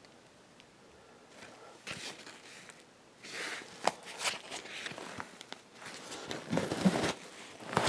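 Scattered rustling, scraping and light clicks from hands working on a car seat's cover and frame, starting about two seconds in and getting busier near the end.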